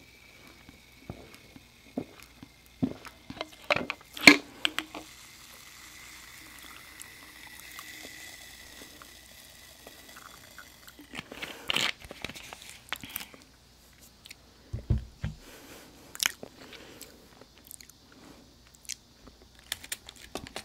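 Biting and chewing Hadir dried jujube sweets: scattered sharp crunchy bites, the loudest about four seconds in and another cluster around eleven to thirteen seconds, with quieter chewing between.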